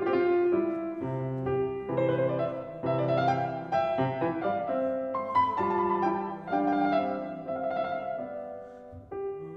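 Background piano music: a slow, classical-style piece of sustained notes and chords.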